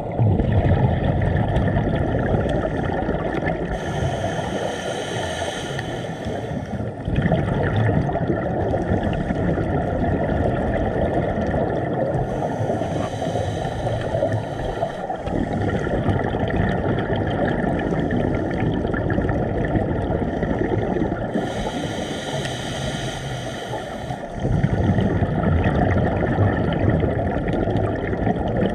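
Underwater sound of a scuba diver breathing through a regulator, heard through the camera housing. Each inhalation is a hiss of a few seconds, followed by a louder bubbling gush of exhaled air, about every eight or nine seconds over a steady low water noise.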